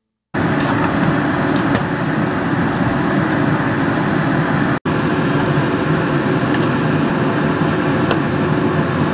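Steady, loud rushing noise at a lit gas stove while pork ribs are blanched, the kind made by a kitchen range hood fan running, with a few light metallic clinks of a skimmer against a pot and strainer. It starts suddenly just after the start and drops out for an instant a little before the middle.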